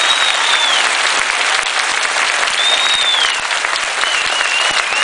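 Large audience applauding, with a few long, wavering high whistles through the clapping.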